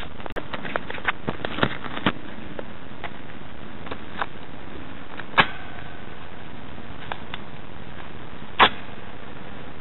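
Duct tape being handled and pressed onto steel balcony railings: scattered light clicks and taps, a sharp tap about five seconds in that leaves a brief metallic ring, and the loudest tap near the end, over a steady background hiss.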